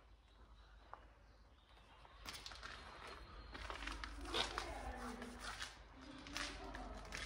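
Footsteps, starting about two seconds in after a quiet opening, with a faint voice murmuring in the background from about four seconds in.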